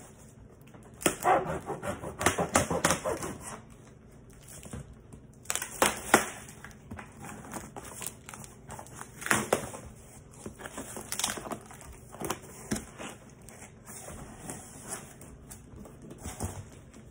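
Cardboard box wrapped in plastic stretch film being pulled open by hand: crinkling of the wrap, scraping and tearing of cardboard in irregular bursts with pauses between them. The longest, busiest stretch comes about a second in.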